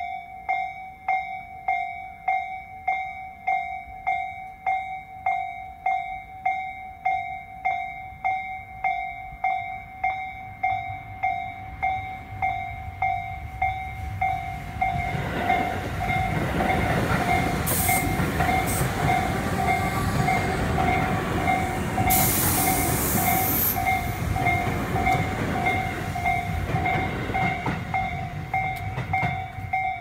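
Japanese level-crossing warning bell ringing in steady, evenly spaced strikes. From about halfway through, an electric commuter train on the Tobu Noda Line runs past over the crossing, rumbling loudly for over ten seconds, with a couple of brief high-pitched bursts, while the bell keeps ringing.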